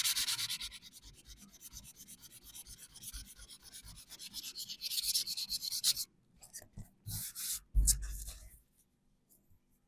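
Hand sanding of primer on a VW T25 van's body panel: quick, rhythmic back-and-forth rubbing strokes that stop about six seconds in. A dull thump follows about two seconds later.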